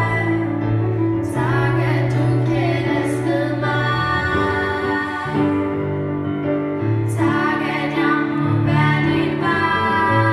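Two teenage girls singing a Danish song as a duet into handheld microphones, over an accompaniment holding long low notes.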